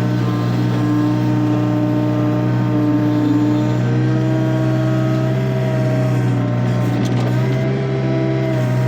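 Takeuchi TB145 compact excavator's diesel engine running steadily under work. Its higher tones step in pitch about four seconds in and again near the end as the hydraulics are worked.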